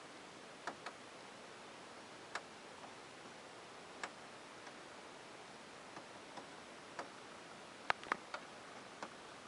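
Scattered light clicks of remote control buttons being pressed at irregular intervals, several in quick succession near the end, over a faint steady hiss.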